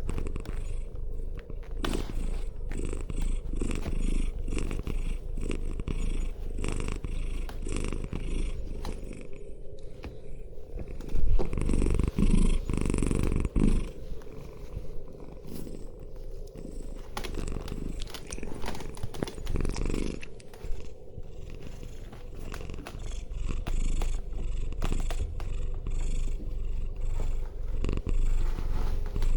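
Domestic cat purring, louder for a few seconds in the middle.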